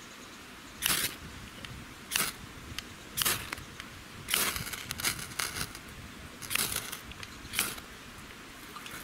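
Ferrocerium rod scraped with a steel striker: about seven short, high scraping strokes roughly a second apart, throwing sparks into birch-bark tinder, which catches near the end.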